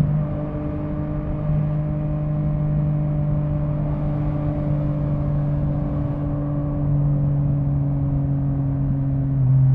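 Yamaha MT-09's inline three-cylinder engine running under light throttle while riding, its note slowly falling in pitch. The note grows louder near the end as the throttle is opened again, over a low rush of wind and road noise.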